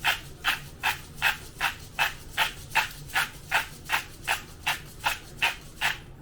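Pink Himalayan salt being ground or shaken onto chicken in even, scratchy rattling strokes, about two and a half a second. The strokes stop just before the end.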